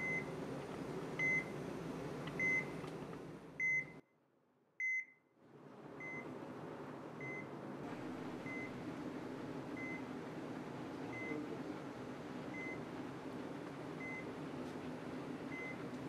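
Hospital heart monitor beeping steadily, one short high beep about every 1.2 seconds over a steady room hum. The beeps are louder in the first few seconds, the sound drops out almost entirely around four seconds in, and the beeps then carry on more quietly.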